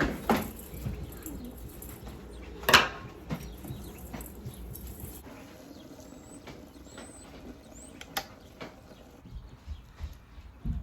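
Kitchen food-prep sounds: a few sharp knocks and taps, the loudest about three seconds in. Faint high bird chirps can be heard in the background.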